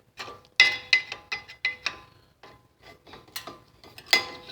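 Pry bar working a brake pad out of the front caliper bracket: a series of sharp metal-on-metal clinks and scrapes with brief ringing, thickest in the first two seconds and with a loud clink near the end.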